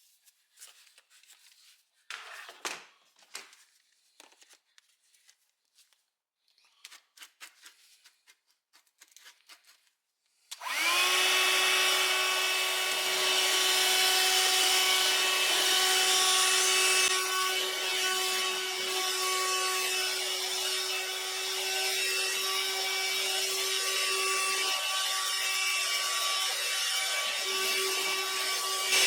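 About ten seconds of handling clicks and rubbing, then a Parkside PHSSA 20-Li C1 cordless hand-held vacuum cleaner switches on and runs steadily with a hissing whine. The tone dips lower for about two seconds some twenty-five seconds in.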